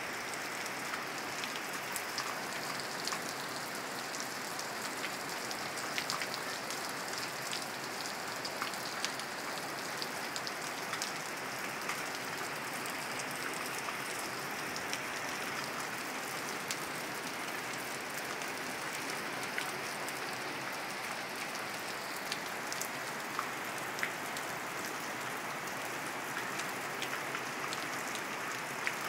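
Steady rain: an even hiss with scattered sharp ticks of single drops.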